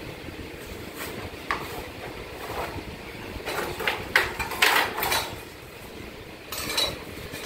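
Metal hand tools clinking, tapping and scraping on a power cable's metal joint connector, with a quick cluster of sharp clinks about halfway through and a short scrape near the end, over a steady low background noise.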